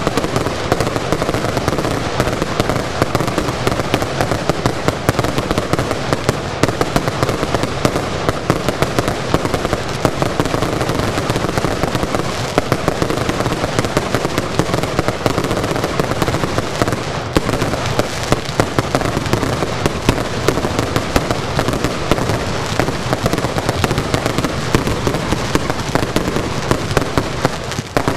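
Fireworks going off in a dense, unbroken barrage: shots launching and bursting in the sky many times a second.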